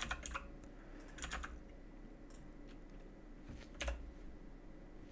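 Faint, scattered computer keyboard keystrokes, a few clicks at a time: near the start, about a second in, and about four seconds in.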